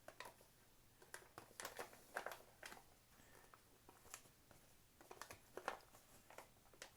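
Faint, scattered crinkles, rustles and small scrapes from a freeze-dried meal pouch being handled while the rehydrated rice meal is emptied out of it onto a plate.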